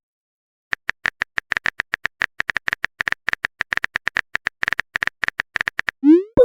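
Phone keyboard typing sound effect: a quick, uneven run of light taps, ending about six seconds in with a short rising whoosh, the sound of a message being sent.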